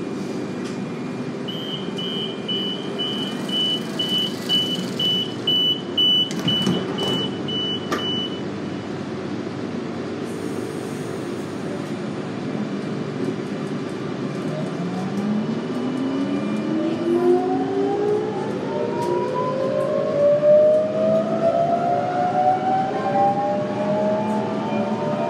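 Electric suburban train: a door-warning beep repeats for several seconds and the doors knock shut. The train then pulls away, with the traction motors' whine climbing in several rising tones over a steady hum.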